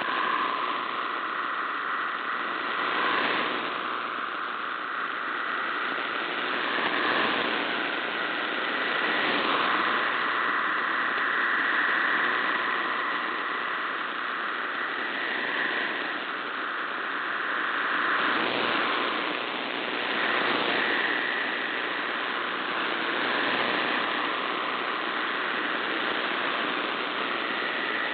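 MT63 digital text signal (1000 Hz wide) from a shortwave radiogram broadcast: a dense, steady band of many tones between about 1 and 2 kHz over receiver hiss and static. The signal swells and fades every few seconds with shortwave fading, a marginal but decodable reception.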